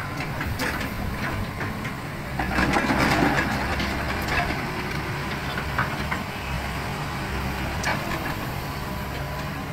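Volvo EW145B wheeled excavator's diesel engine running steadily as its bucket scrapes and scoops gravel and rocks, with crunching and clattering of stones, loudest about two and a half to three and a half seconds in.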